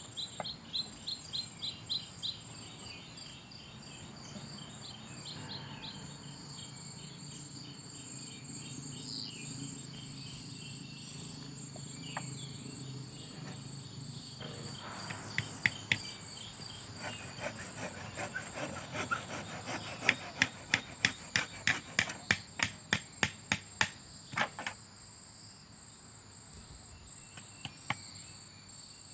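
Hammer striking a small wooden frame in a quick series of sharp knocks, about three a second, starting about halfway through and stopping a few seconds before the end. Under it runs a steady high drone of insects.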